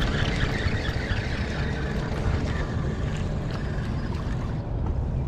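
Steady low wind rumble on the microphone aboard a fishing boat, with a hissing noise over the first few seconds that then fades.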